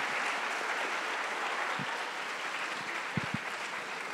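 Audience applauding, the clapping slowly dying away, with two short low thumps a little past three seconds in.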